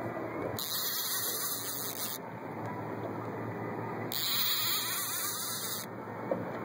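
Fishing reel drag buzzing in two bursts of about a second and a half each, about three seconds apart, as a hooked striped bass pulls line off against the drag.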